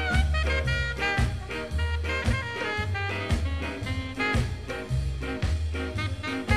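Background swing music: horns over drums and a bass line stepping from note to note, with no singing in this stretch.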